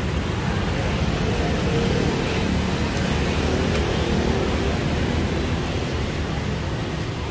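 Steady city street noise at night: a low rumble of traffic with faint chatter from people at the sidewalk tables.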